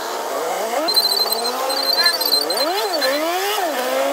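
Jeepney engine pulling the loaded vehicle along, its pitch climbing, dropping back twice in quick succession near the middle, then climbing steadily again, heard from inside the passenger cabin. A high, rapid beeping sounds briefly from about one to two and a half seconds in.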